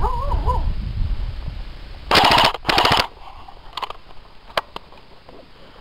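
Airsoft electric gun, a G&G MP5, firing two short full-auto bursts about half a second apart, a rapid buzzing rattle of shots. A few single sharp snaps follow.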